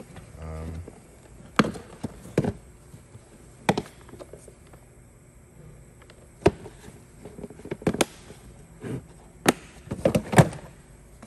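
Hand tools being picked up, moved and set down in a toolbox drawer: a string of separate sharp clacks and knocks at uneven intervals, with several bunched together near the end.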